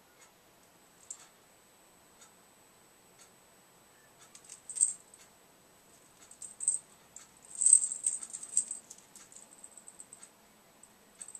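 A parrotlet's claws and beak clicking and rattling against wire cage bars and hanging toys in a few bursts, the busiest about halfway through. A faint tick sounds about once a second behind it.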